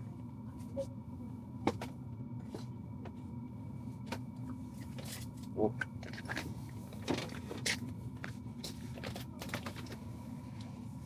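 Scattered clicks, taps and clothing rustles of people shifting in their seats and handling gear, over a steady low hum.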